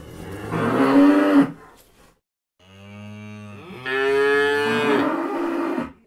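Calves mooing: one moo over the first second and a half, then a longer moo of about three seconds that rises in pitch partway through.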